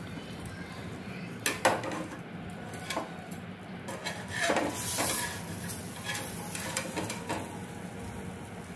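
Steel tongs clinking and scraping on an iron tawa and a plate as crisp stuffed rotis are lifted off the griddle: a handful of sharp clicks, the loudest about a second and a half in, and a longer scrape around the middle.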